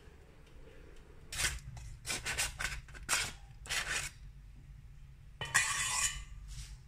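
A table knife scraping soft butter off its paper wrapper into a stainless steel bowl: a quick series of short scrapes, then one longer, louder scrape near the end.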